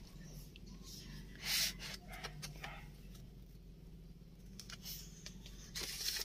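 Pages of a printed paper manual being opened and turned by hand: a few brief rustles, the loudest about a second and a half in, over a faint steady low hum.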